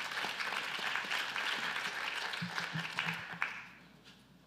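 Audience applauding, dying away a little before the end.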